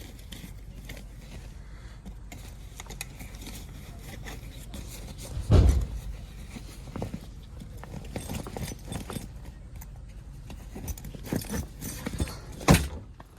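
Footsteps and handling noises: scattered clicks and knocks, with a heavy thump about five and a half seconds in and a sharp knock near the end.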